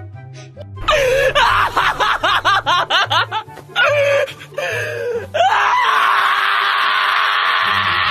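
Shiba Inu screaming in protest while held down for a vet examination: a quick string of yelping screams that swoop up and down in pitch, then one long, harsh, unbroken scream from about five seconds in.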